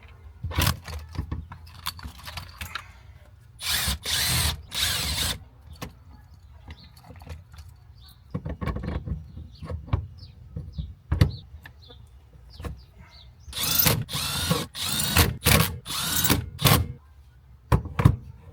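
Power drill/driver running steering-wheel hub bolts in or out in repeated bursts of one to two seconds each, with quieter clicks and handling noise between them.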